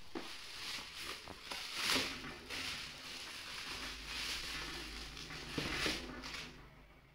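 Thin plastic shopping bag rustling and crinkling in several bursts as hands open it and rummage inside, dying down near the end.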